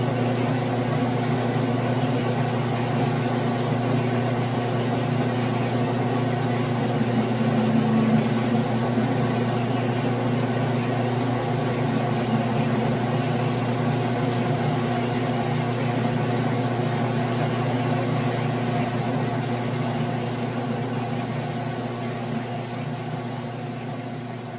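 Grizzly G9972Z bench lathe running steadily as it turns a 6061 aluminium workpiece, its motor and drive humming with several steady tones while the tool peels off long stringy chips. The sound gradually gets quieter over the last few seconds.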